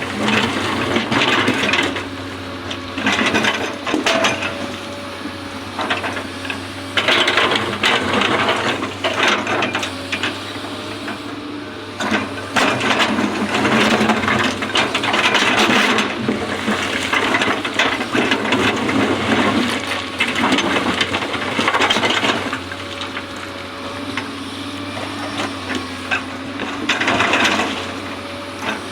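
Excavator engine running steadily, with repeated bursts of clattering and scraping a few seconds long as the machine works.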